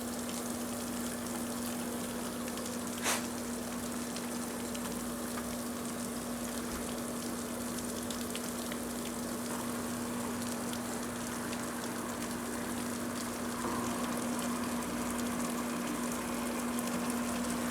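Above-ground pool cartridge filter pump running with a steady hum, water rushing through it; one sharp click about three seconds in. The pool is not yet full, and the owner expects the pump to run quieter once it has more water in it.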